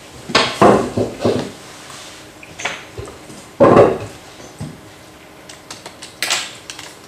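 Irregular knocks and clatter of things being handled on a desk: a handful of short bangs, the biggest near the start and about three and a half seconds in, with a few light clicks near the end.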